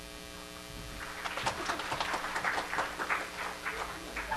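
A rapid, irregular run of short clicks and taps lasting about three seconds, over a steady electrical mains hum.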